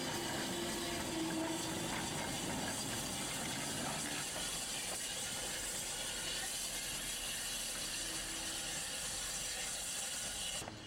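Saddle-tank steam locomotive hissing steam steadily as it moves off with its wagons, with no distinct exhaust beat.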